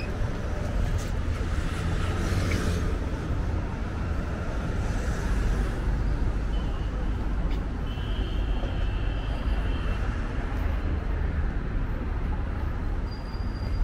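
Steady city street traffic noise: a continuous rumble of road vehicles running, with faint voices in the background.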